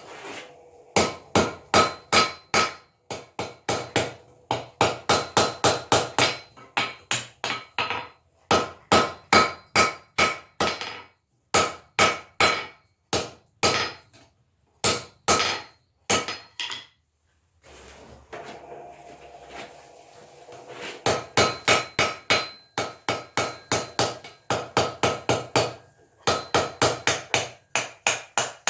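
Blacksmith's hammer striking iron on an anvil while forging a hinge pintle, in quick runs of about three blows a second, each blow ringing. The hammering stops for a few seconds about two-thirds of the way through, then starts again.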